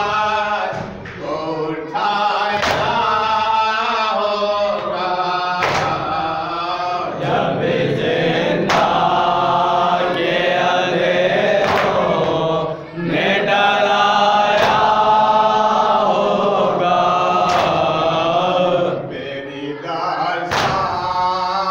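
Men chanting an Urdu noha together, a lead reciter with the group joining in, with sharp chest-beating (matam) strikes falling about every three seconds. The chanting dips in level near the end.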